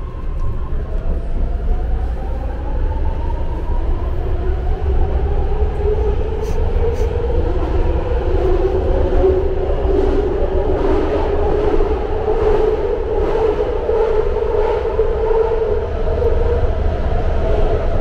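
Legacy-fleet BART train car heard from inside while it runs: a whine rises in pitch over the first few seconds, then a loud steady rumble with a wavering whine carries on as the train runs at speed.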